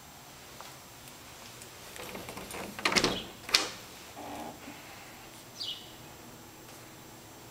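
A closet door being opened: a short rattle, then two sharp knocks about three seconds in as the door is handled, and a brief high falling chirp near the end.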